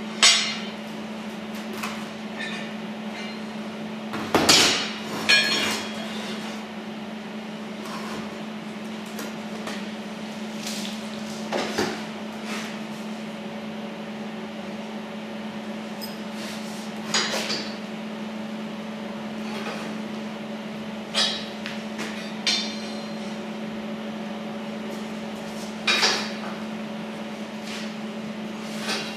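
Sharp metallic knocks and clanks, about eight spread irregularly, as flat steel bar brackets are set down, tapped and positioned on a workbench, each with a short ring. A steady low hum runs underneath.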